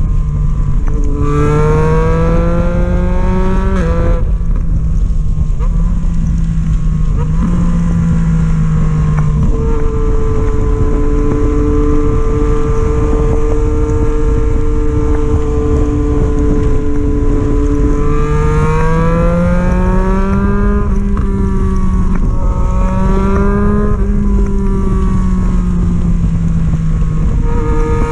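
Motorcycle engine pulling up through the gears: the revs rise and drop back at each upshift about four and ten seconds in, hold steady at cruise for several seconds, then rise through two more shifts before settling again. A heavy rush of wind noise runs underneath.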